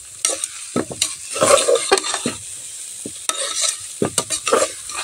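A metal spatula stirs and scrapes chana dal (split chickpeas) roasting in oil in an aluminium pressure cooker. Irregular scrapes sound over a steady sizzle, and the dal is starting to stick to the bottom.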